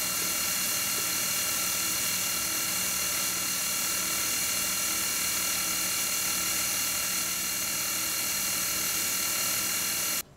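Milling machine spindle running while an 8 mm end mill takes a light finishing pass, about a tenth of a millimetre width of cut, along the edge of an aluminium plate: a steady machine whine of several steady tones over an even hiss. It cuts off abruptly near the end.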